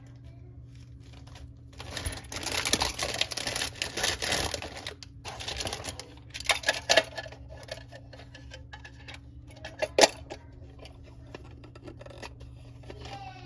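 Hard plastic parts of a children's bug-viewer container being handled: a few seconds of rapid clattering and rustling, then scattered clicks and one sharp click about ten seconds in.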